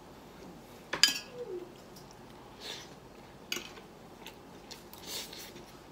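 A metal fork and spoon clinking and scraping against a ceramic plate of rice while someone eats. The loudest clink comes about a second in, another comes at about three and a half seconds, and lighter taps and scrapes fall in between.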